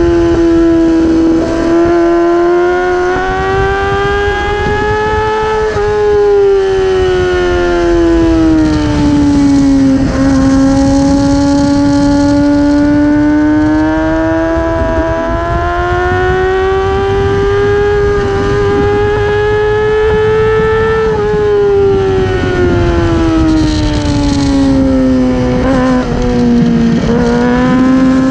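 Racing motorcycle engine at high revs, heard from the bike itself, with wind rushing over the mic. The engine note climbs slowly while the bike accelerates and falls away about 6 and 21 seconds in as the throttle closes for corners.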